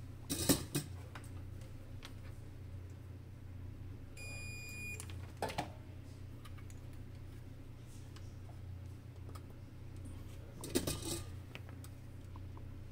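Small metal tools and parts clinking and clattering on a workbench during soldering work, in three short bursts, over a steady low hum. A short, high electronic beep sounds just before the middle.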